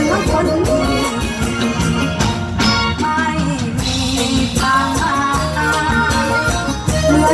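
Live Isan band music: a toei dance tune with a steady beat, and a woman singing into a microphone.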